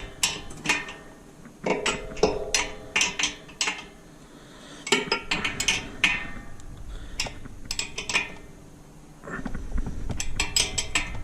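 Hand tools and bolts clinking and clanking on the steel parts of a mud motor kit as the bolts are snugged up by hand, in scattered sharp knocks, some of them ringing briefly. From about nine seconds in, a denser clatter of handling over a low rumble.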